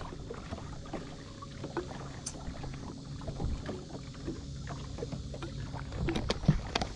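Water lapping at a bass boat's hull under a low steady hum. A few sharp plastic clicks and knocks near the end as a drink bottle is handled close to the microphone.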